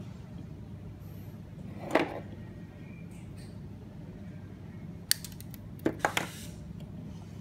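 Small pliers snipping a wire lead of an IR sensor with one sharp click a little after five seconds, then a quick clatter of three clicks as the metal pliers are set down on the wooden table. A brief scrape of handling about two seconds in, over a low steady hum.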